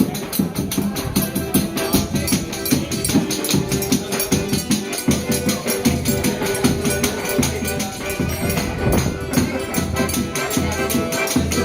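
Forró pé-de-serra band playing: accordion (sanfona) melody over a steady, quick beat of jingling percussion and low drum strokes.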